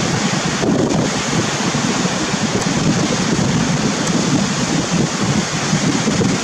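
Wind buffeting the microphone over the rush of surf breaking on a beach; a steady, churning noise with no distinct events.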